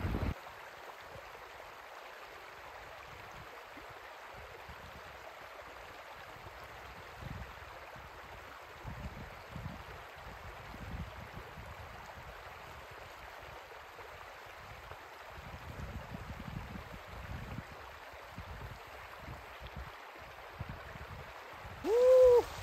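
Shallow mountain stream running steadily over stones. Near the end, a man's voice gives a short, loud rising-and-falling "ooh".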